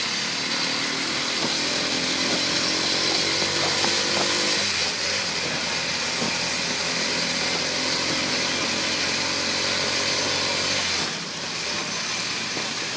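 Small motorcycle engine running under way, with wind and road noise. Its tone shifts about five seconds in, and the engine eases off near the end.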